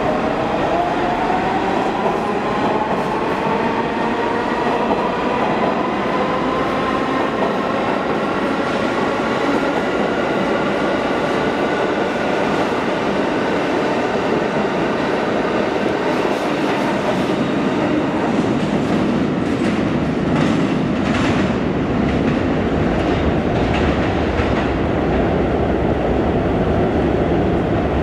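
Pullman Standard R46 subway train accelerating out of a tunnel station. Its motor whine rises in pitch over the first ten seconds or so and then holds, over a loud, steady rumble of steel wheels on rail. In the second half a run of clacks comes from the wheels passing over rail joints.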